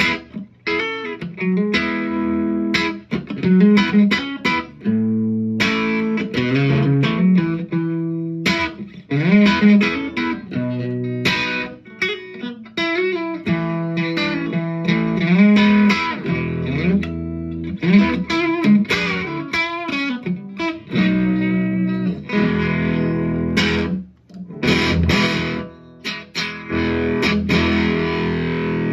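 Electric guitar played through a Dolamo fuzz pedal with its fuzz knob rolled back to about noon. Single-note lines and chords with string bends, broken by a few short pauses.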